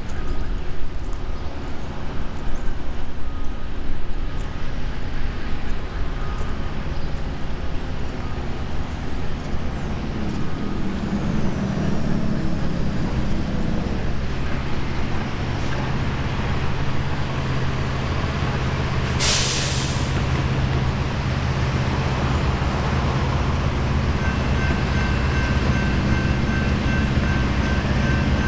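Norfolk Southern EMD SD70ACE diesel-electric locomotive approaching from a distance at the head of a freight train. Its engine drone becomes steady and stronger from about halfway. There is a brief sharp hiss about two-thirds in, and faint steady high tones join near the end.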